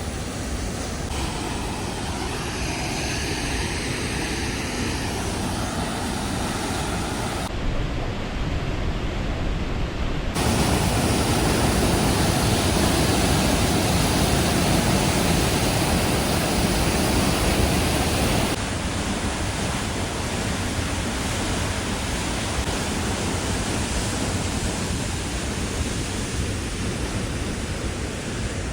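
Steady rush of a waterfall's falling water, a dense even noise that changes abruptly in level several times and is loudest in the middle stretch.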